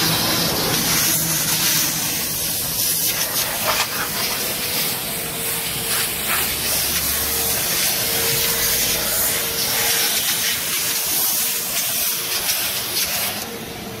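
Self-service car-wash vacuum hose sucking air at its nozzle as it is worked over a car's rear seat and floor: a steady, loud hiss.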